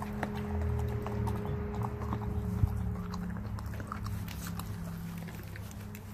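A Renascence Bulldogge pup gnawing a raw whitetail deer foreleg: irregular sharp cracks and crunches of teeth on bone, hide and hoof, with one louder crack about two and a half seconds in.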